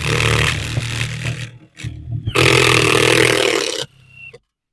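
Power drill driving a screw in two runs of about a second and a half each, with a short pause between.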